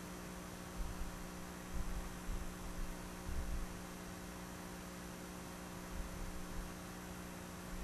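Steady electrical mains hum, with a few soft, low bumps scattered through it.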